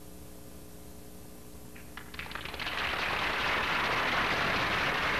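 Audience applause that breaks out about two seconds in and swells to a steady clatter, over the low hum and hiss of an old film soundtrack.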